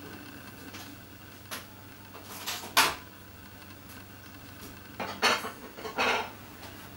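A Munchkin cat playing, heard as several short, sharp clattering knocks in scattered clusters, the loudest near the middle and again about two-thirds of the way through.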